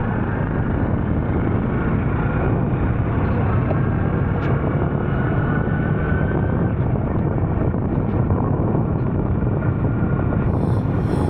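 Honda CT125 Hunter Cub's single-cylinder engine running steadily under way, mixed with steady wind and road noise.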